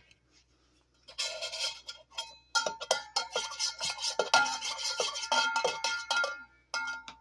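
Spoon stirring coffee in a mug, clinking and scraping rapidly against its sides so the mug rings, starting about a second in and stopping near the end.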